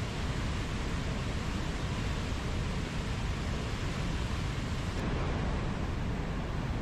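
Mountain stream rushing steadily over rocks, a continuous even flow of water.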